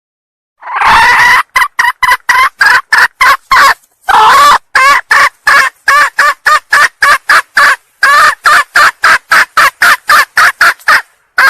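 Wild junglefowl hen calling in a call used to lure junglefowl cocks. It begins with one long note, then gives rapid runs of short clucks at about four to five a second, with two brief breaks.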